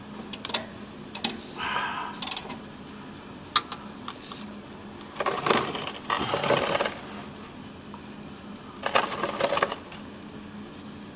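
A ratchet wrench clicking and metal clinking in several short bursts as a stubborn, seized catalytic converter mounting bolt is worked loose.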